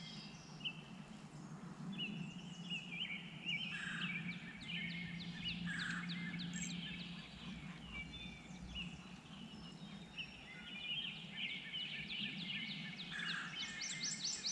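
Wild songbirds singing: a mix of chirps and fast trills of quick down-slurred notes, over a steady low hum.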